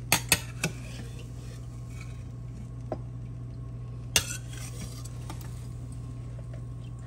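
Metal spoon scraping and clinking against a stainless steel skillet and a colander while the fat is drained off browned ground beef: a few light clinks in the first second, another near three seconds and a sharper one about four seconds in, over a steady low hum.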